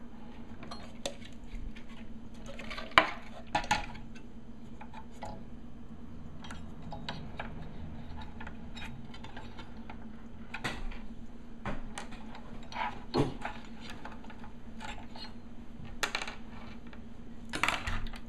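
Desoldered electrolytic capacitors being wiggled and pulled out of a TV power-supply board by hand: scattered small clicks, taps and clinks, with a few sharper knocks.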